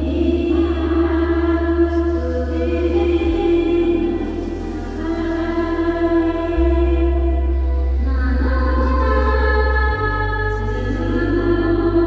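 Background music: sustained choir-like voices holding slow chords over low bass notes that change about every three seconds.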